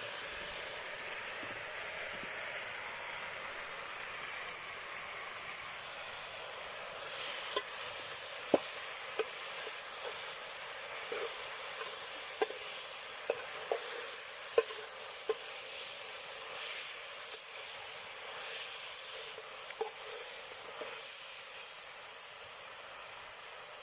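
Okra and eggplant sizzling steadily in a cooking pot. From about seven seconds in, a scatter of sharp taps and clicks, as of a spoon working in the pot, sounds over the sizzling.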